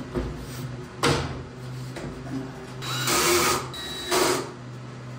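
A handheld power drill runs in two short bursts, about three seconds in and again a second later. Before them there is a knock about a second in, all over a steady low hum.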